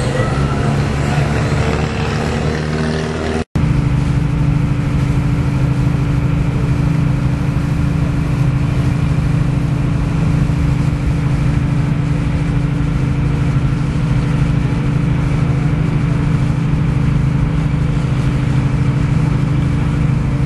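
After a brief dropout about three and a half seconds in, a boat's engine runs with a steady low drone, heard from on board along with the rush of water.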